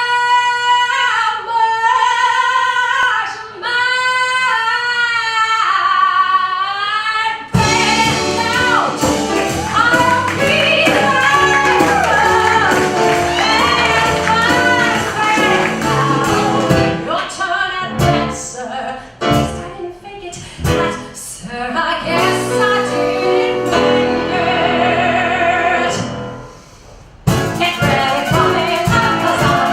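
A woman singing solo, holding long notes with vibrato. About seven seconds in, a full band comes in under her voice. The music thins out briefly near the end, then comes back in full.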